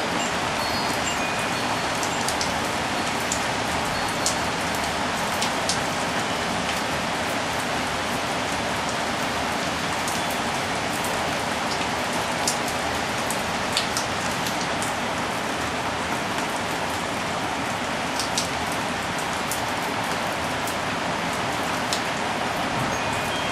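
Steady rain shower falling, with the close patter of individual drops striking surfaces.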